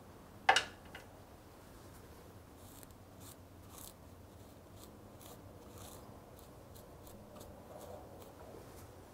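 One sharp knock about half a second in, then a cloth rubbing and wiping in short strokes across the motorcycle engine case where the oil sight glass mounts.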